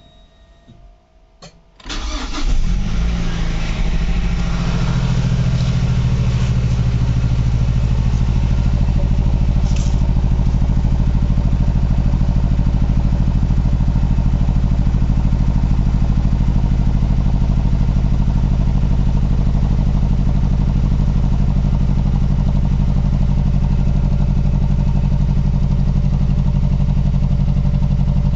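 Mazdaspeed3's turbocharged 2.3-litre four-cylinder engine cranks and catches about two seconds in on a cold start. It flares briefly, then settles into a steady but rough idle, which the owner takes for a misfire.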